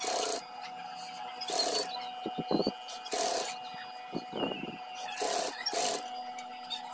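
Fabric being handled and slid across a sewing machine bed, rubbing and rustling in several short bursts, with a few light knocks, over a steady hum.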